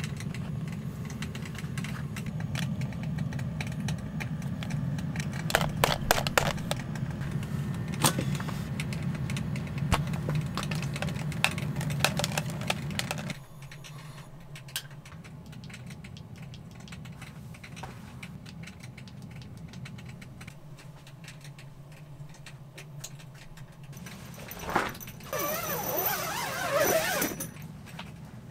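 A steady low hum with scattered clicks and taps of gear being handled. About halfway the hum drops to a quieter level. Near the end comes a few seconds of scratchy, back-and-forth noise like a zipper being pulled.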